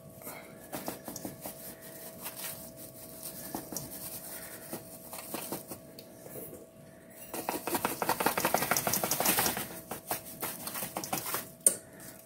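Self-rising cornmeal mix poured from a paper bag into a metal measuring cup: light handling clicks, then a dense dry rustling pour with the bag crinkling for a couple of seconds past the middle. A faint steady hum lies underneath.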